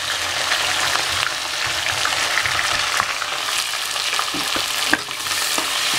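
Sliced onions sizzling in hot oil and ghee in a pressure cooker as they are stirred, with scraping clicks against the metal pot. A sharp tap comes near the end.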